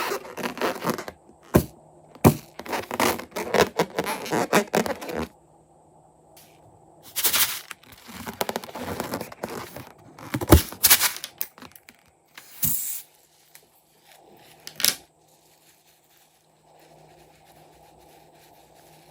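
Crackling, scraping handling noise of slime-making with balloons, dense for the first five seconds, then two shorter bursts, two sharp clicks, and a faint steady hum near the end.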